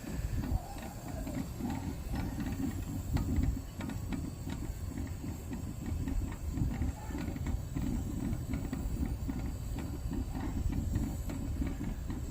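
Pyrex glass percolator perking on the heat, bubbling with faint small pops, under a low, uneven rumble of wind on the microphone.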